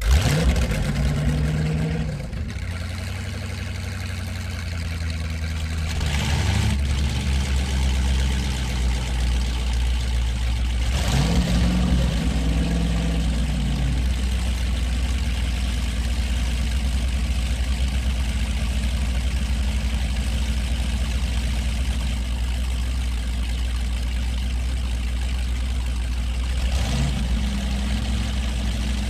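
Airboat's engine and propeller running with a deep, steady rumble, briefly revving up and easing back off several times, around 6, 11 and 27 seconds in.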